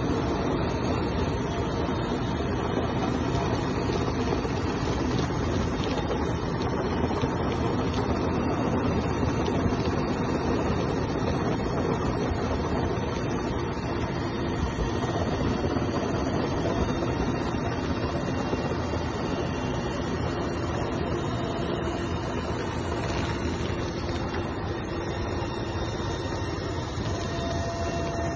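Helicopter engine and rotor noise heard from inside the cabin at the open door, steady and unbroken, as the crew winches people up from the flood.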